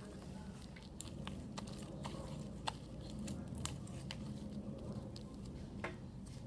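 Sticky slime being squeezed and pulled by hand on a wet table, making irregular little clicks and pops over a low steady hum.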